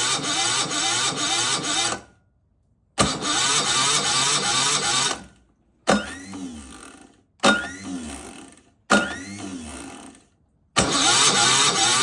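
Excavator engine running, heard in short clips cut together with sudden silent gaps between them; in the middle three short pieces each start loud and fade away.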